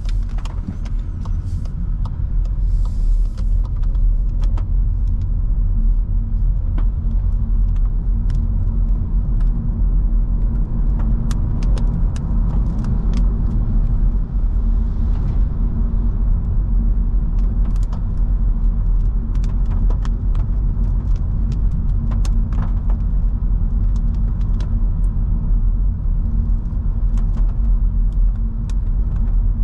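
In-cabin driving noise of a 2022 Skoda Scala 1.5 TSI on a wet road: a steady low rumble from the tyres and drivetrain, with scattered light ticks throughout.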